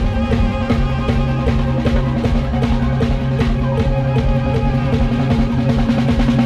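Lam sing band music, Isan Thai folk-pop, with a drum kit keeping a fast, steady beat over held bass and keyboard notes.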